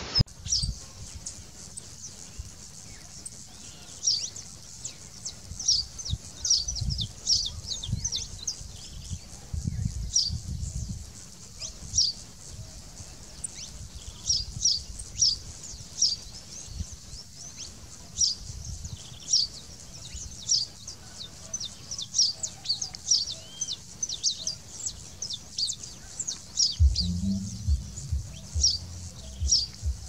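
Saffron finch calling: short, high, sharp chirps repeated every half second to a second, over a low rumble that swells briefly near the middle and again near the end.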